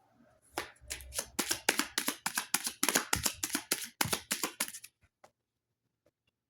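A deck of tarot cards being shuffled by hand: a quick run of crisp card slaps and flicks, about five a second, that stops about five seconds in.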